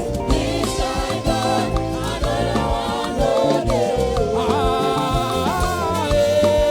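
Live church band playing an upbeat praise song with a steady, dance-like beat and bass, with singing over it.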